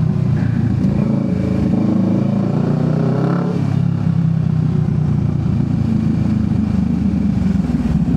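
Motorcycle engine running on the move, its pitch climbing as it accelerates, then dropping suddenly about three and a half seconds in and holding steady.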